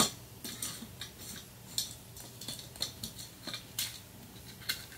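Small screws being fitted by hand into a flat-panel monitor's metal chassis: an irregular scatter of faint metallic clicks and ticks.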